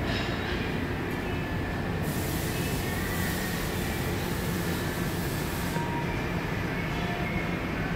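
Steady noise of industrial machinery running, with a hiss that starts about two seconds in and stops about two seconds before the end.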